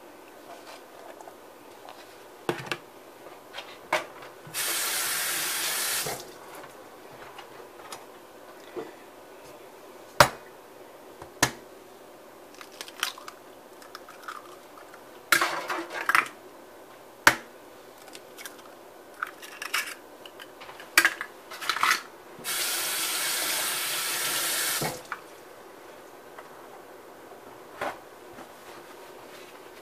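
A kitchen tap runs in two short spells, about four seconds in and again past the twenty-second mark. Between them come sharp knocks and clicks on a stainless steel mixing bowl while ingredients go in and an egg is cracked into it.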